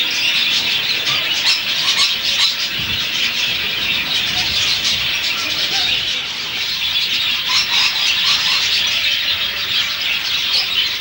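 Dense, steady chorus of many birds calling at once in an aviary, a high chattering din.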